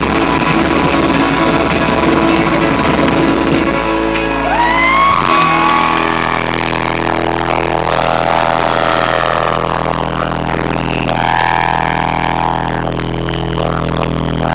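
Live rock band playing the loud ending of a song. About four seconds in, the full-band playing gives way to one held final chord, over which a voice sends out several long high notes.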